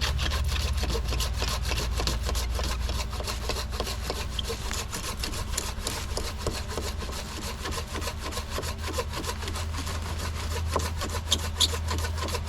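Silky Ultra XL 240 curved pull saw cutting through an oak log by hand, with steady continuous sawing strokes.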